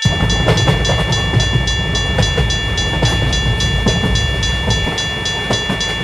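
Railroad crossing warning bell ringing at about three to four strikes a second while a train runs past, with a loud low rumble and wheel clicks.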